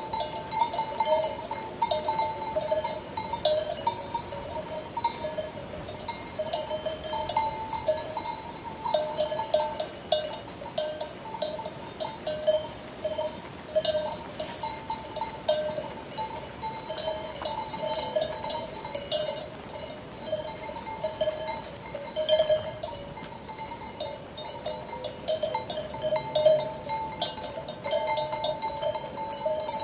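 Several sheep bells clanking unevenly and without a break, their rings overlapping at two or three pitches.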